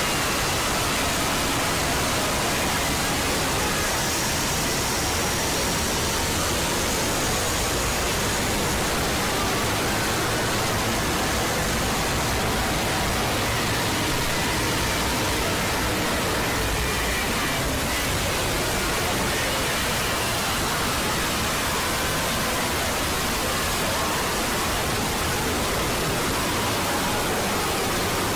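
Loud, unchanging static hiss filling every pitch, with a few faint thin tones barely showing through it.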